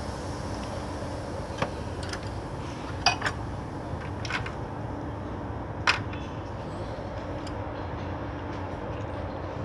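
Light metallic clicks and clinks of tools and engine parts, about six in the first six seconds, as a fuel injector and its hold-down plate are fitted into a BMW engine. Under them runs a steady workshop hum.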